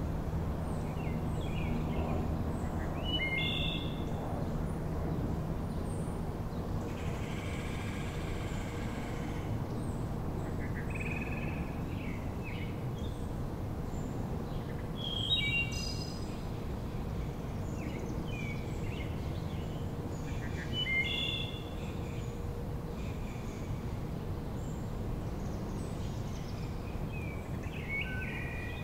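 Wood thrush singing, a short phrase every several seconds, over steady low background noise.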